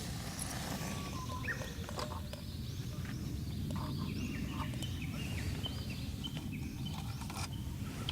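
Birds calling: a long run of short, quickly repeated chirps starting about two seconds in, over a steady low background rumble.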